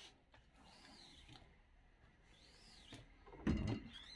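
Rubber squeegee pulled across a silk screen loaded with PVC ink: three faint scraping strokes, each rising and falling in pitch. A dull knock comes about three and a half seconds in.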